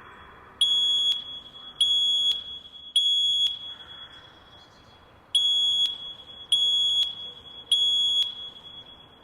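Fire alarm sounding its high-pitched temporal-three evacuation tone: three half-second beeps, a pause, then three more, each with an echoing tail.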